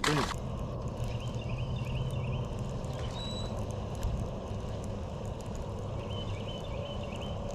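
Outdoor ambience by the water: a bird sings a short, repeated chirping phrase about half a second in and again near the end, over a steady low rumble with light scattered clicks.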